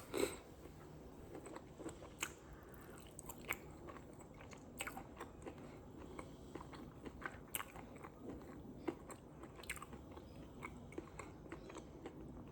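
A person chewing and biting food close to the microphone, with irregular small crunches and mouth clicks throughout.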